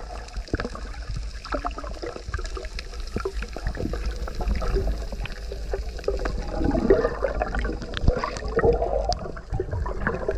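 Underwater sound from a diver's camera: bubbles gurgling, with scattered sharp clicks over a steady low rumble. The gurgling is thickest from about the middle to near the end.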